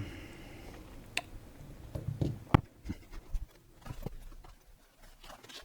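Scattered light clicks and taps of small tools and phone parts being handled during a smartphone teardown, with one sharper click about two and a half seconds in.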